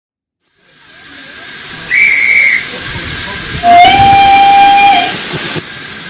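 Steam locomotive letting off steam with a loud hiss that swells up, and its whistle sounding twice: a short high note, then a longer, lower one.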